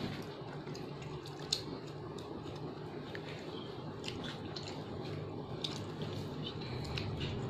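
Biscuits being picked up and bitten: a few short, sharp crunches and clicks scattered over a steady low background hum.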